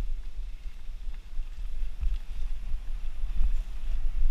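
Wind buffeting a helmet-mounted action camera's microphone while riding a mountain bike along forest singletrack, a low rumble that rises and falls, with faint scattered ticks and rattles from the bike and tyres over the leaf-strewn dirt trail.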